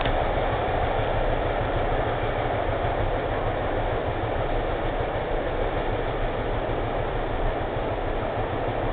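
Freight train rolling away along the track: a steady rumble of wagon wheels on the rails, slowly fading.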